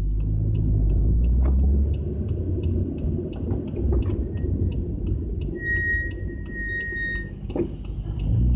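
Nissan Skyline GT-R (BNR32) on the move: a steady low drivetrain and road rumble, with a thin high tone sounding for about two seconds past the middle.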